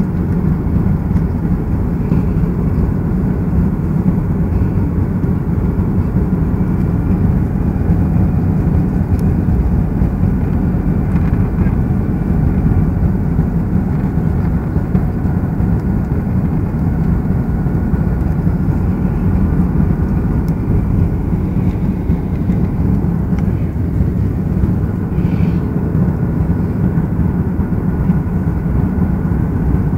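Steady cabin noise inside an Airbus A330 airliner in flight: an even, deep rumble of engines and airflow with a faint steady whine above it.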